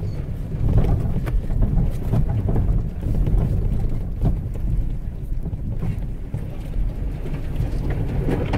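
Toyota 4Runner crawling slowly, heard from inside the cabin: a steady low rumble of engine and tyres, with branches of thick brush scraping and swishing along the body.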